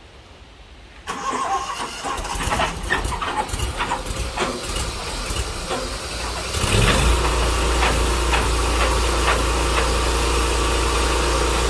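Tru Cut sawmill's engine starting up: a sudden clattering start about a second in, then about seven seconds in it settles into steady running with a strong low hum.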